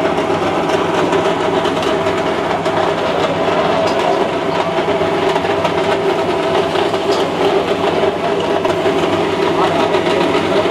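Busy restaurant kitchen din: a loud, steady hum with background voices running under it.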